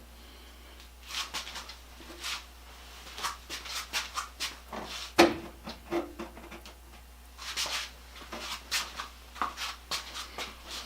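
Hand work on a wooden tool box as metal bands are screwed on: irregular short clicks, scrapes and rattles of tools and hardware against wood, with one sharp knock about five seconds in.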